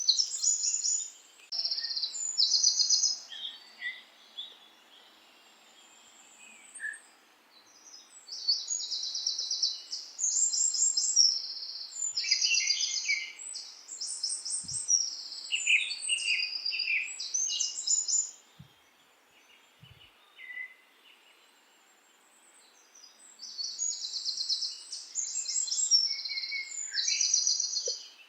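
Songbirds singing in short, high, rapidly trilled phrases that come in bouts, with a few seconds of pause between them, over a faint steady background hiss.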